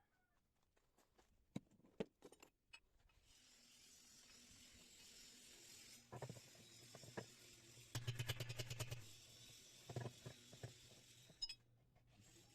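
Faint clicks and clatter of tools and metal parts being handled during washing-machine repair, over a steady hiss. A quick rattle of about a dozen ticks comes about eight seconds in.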